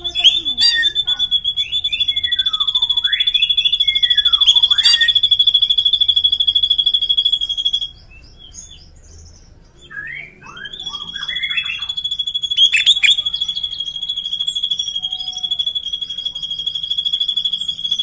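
Caged drongos singing a long, steady, high rolling trill, the 'ngeroll' prized by songbird keepers, with down-slurred whistles over it. The trill breaks off about eight seconds in, and after a few short rising chirps a second long trill starts and holds to the end.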